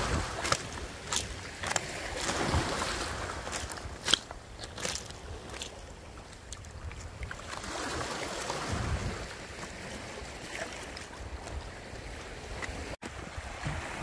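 Sea waves washing in on the shore, swelling twice, about two and about eight seconds in, with wind buffeting the microphone and scattered sharp clicks in the first half.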